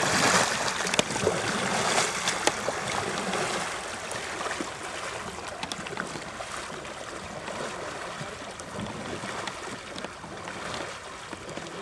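Water splashing and lapping against a canoe hull, with scattered small knocks during the first few seconds, then a quieter, steadier wash.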